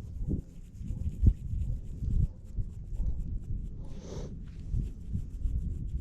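Small brush scrubbing dirt off a small tombac button in quick short strokes, with one sharp knock about a second in.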